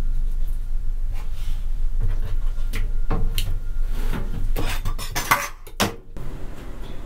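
Chef's knife slicing the belly bones away from a raw threeline grunt (isaki) fillet on a cutting board: a run of short scraping cuts, loudest and busiest about five to six seconds in, over a steady low hum.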